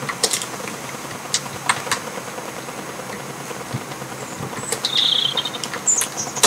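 Sparse keystrokes on a laptop keyboard as a password is typed, single clicks every half second or so over a low hiss. A short high chirping is heard about five seconds in.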